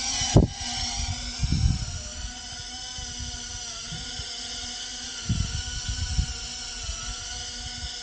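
GEPRC Phantom micro FPV quadcopter's brushless motors and propellers in flight: a steady multi-tone whine that wavers slightly in pitch with the throttle, heard close up, with irregular low thumps of air against the microphone.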